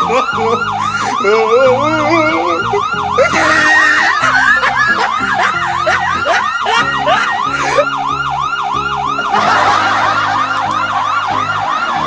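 Police-style electronic siren in a rapid yelp, its pitch sweeping up and down about three times a second, over background music.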